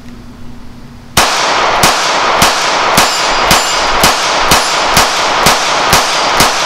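Taurus G3c compact 9mm pistol fired in a steady string, about a second in, roughly two shots a second, around eleven in all, loaded with Double Tap 9mm +P all-copper hollow points. A continuous loud wash of sound fills the gaps between the shots.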